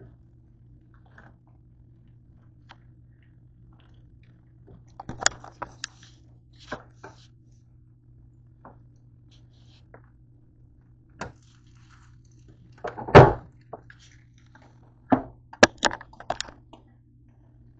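Kitchen handling noise: scattered knocks and clicks of cookware and utensils, with one heavy thunk about two-thirds of the way through and a quick run of clicks after it, over a low steady hum.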